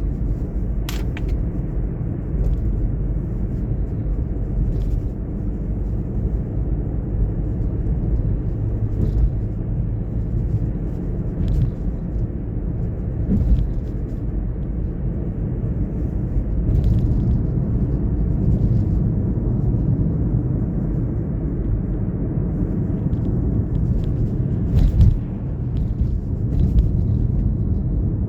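Car driving at steady speed: a steady low rumble of tyres and engine on the road, with scattered light ticks and a louder bump near the end.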